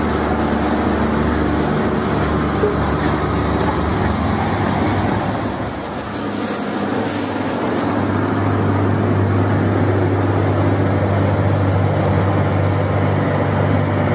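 Heavy diesel trucks passing: first a semi-trailer rolling by, then a Hino 500 truck hauling steel beams coming up with a steady low engine drone. The sound dips briefly around the middle before the second truck's engine comes in stronger.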